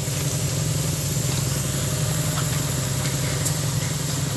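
Steady low mechanical hum with a high hiss, and a few faint pops from thick curry masala simmering in a clay pot.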